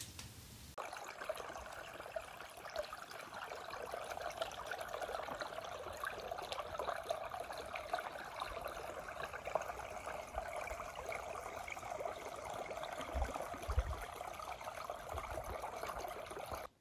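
Small creek trickling and bubbling over stones between snow-covered banks, a steady babble of running water, with a few low thuds late on.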